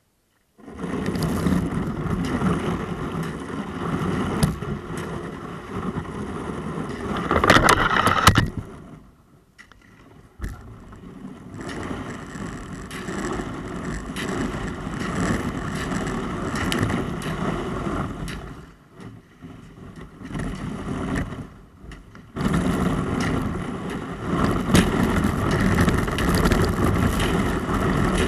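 Kayak hull crunching and scraping through a thin sheet of river ice: dense crackling and grinding, loudest about eight seconds in, with two short lulls.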